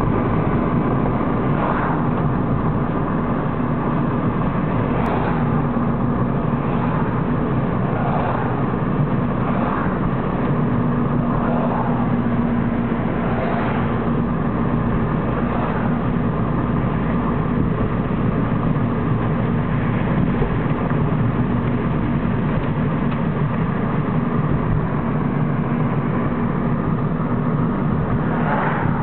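Steady road and engine noise inside a moving car's cabin: an even rumble of tyres on the road with a low engine hum.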